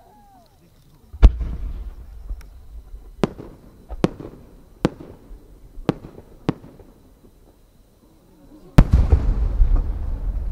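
A single 10-gō (30 cm) firework shell. The mortar launch booms about a second in. Five sharp cracks follow over the next few seconds as small flower bursts go off along its climb. Near the end the main shell bursts with a loud boom and a long rumbling tail.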